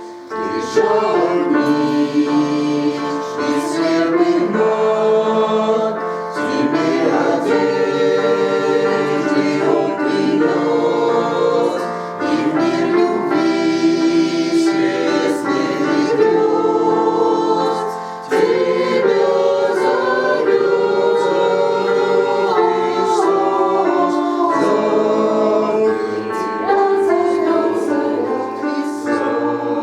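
Church choir singing a hymn, voices held in sustained chords. The singing runs in phrases, with brief breaks about twelve and eighteen seconds in.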